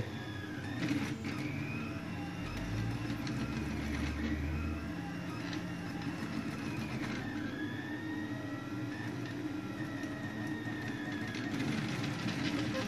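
Steady low hum, like a small motor or fan running, with a brief low rumble a couple of seconds in.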